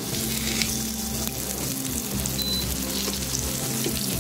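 Semolina-coated kingfish steak sizzling steadily in shallow hot oil in a nonstick frying pan, with a few short crackles, as it fries on its second side after being turned with a spatula.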